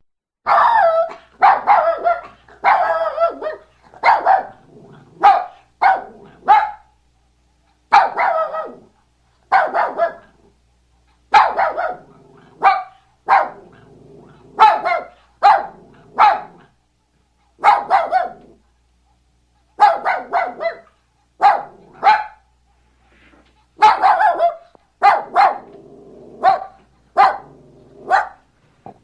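Dog barking repeatedly in quick runs of two to four barks with short pauses between runs.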